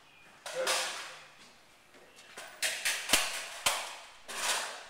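Rifle shots on an indoor firing range: one shot about half a second in, then a quick run of about five shots a couple of seconds later, each followed by a short echo.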